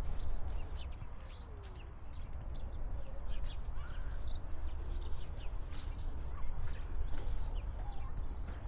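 Footsteps of a walker, with a steady low rumble on the microphone and a few faint bird calls.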